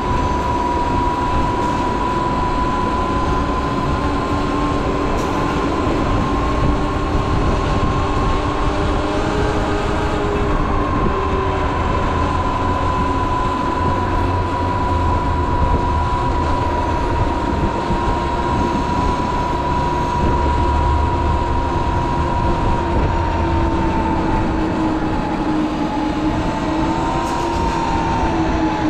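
Sur Ron Light Bee X electric dirt bike riding along, its electric motor and drive giving a steady high whine that drifts slightly in pitch with speed, over a constant rumble of wind and tyres.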